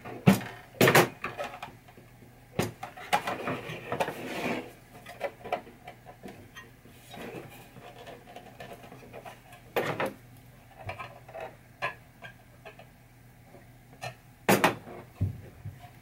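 Scattered clicks, taps and light knocks from small metal pinball chime box parts being handled on a workbench while short silicone hose sleeves are pushed onto them by hand. The sharpest knocks come about a second in, at about ten seconds, and twice near the end.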